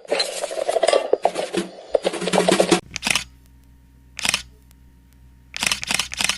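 Camera shutter clicks: a dense rapid clatter of shots for about three seconds, then two single clicks about a second apart, then a quick burst of clicks near the end.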